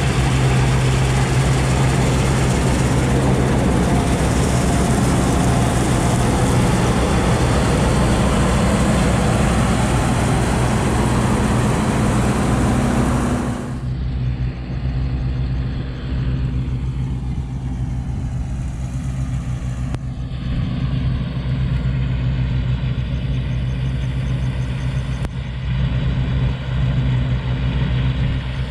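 New Holland 8080 combine harvester running close by as it cuts wheat: a steady engine drone under a dense, hissing noise. About 14 seconds in the sound cuts suddenly to a quieter, duller engine drone that stays steady.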